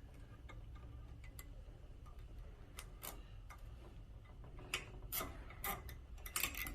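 Nylon zip tie being pulled tight through its head, its ratchet giving off faint scattered clicks that come thicker and faster near the end.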